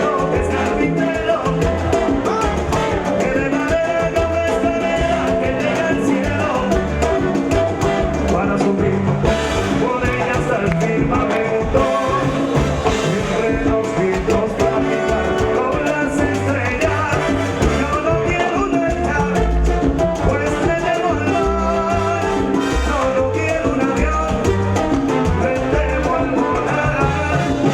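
Salsa music: a band playing at a steady, even loudness over a regular bass pulse.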